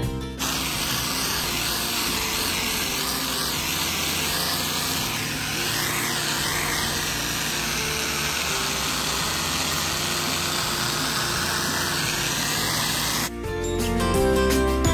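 Pressure washer blasting high-pressure water onto pavement during rinsing: a steady hiss of spray with a low hum beneath, shifting slightly as the nozzle moves. It cuts off abruptly about 13 seconds in.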